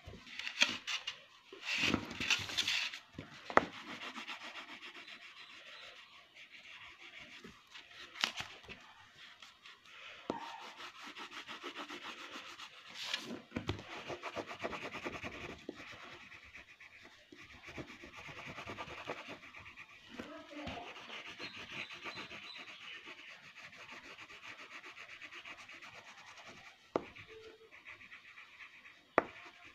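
Colouring on paper: fast back-and-forth scribbling strokes of a colouring pencil rubbing across the sheet, with a few sharp knocks in the first few seconds.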